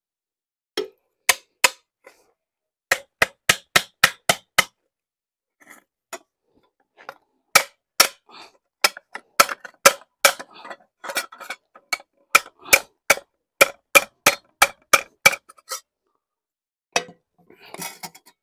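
Hammer tapping a thin rusty steel plate wrapped around a pipe on a wooden stump, curling it into a round sleeve to patch a car's broken exhaust flex pipe. A run of sharp, ringing metallic strikes, about two to three a second, pauses about five seconds in and then resumes for a long run before stopping near the end.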